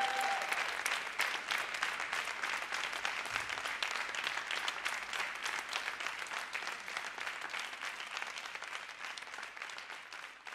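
Audience applauding, the clapping gradually fading out.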